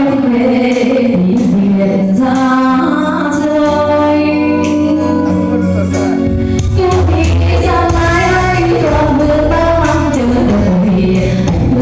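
A song playing: a woman's singing voice holding long notes over instrumental backing with a steady bass.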